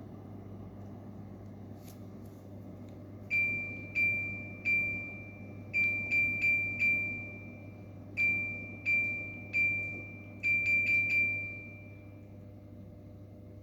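An LG ICE Series electric fan's control panel beeping: about fourteen short, high beeps, each fading quickly, come in four quick runs of three or four, as its buttons are pressed, over a steady low hum.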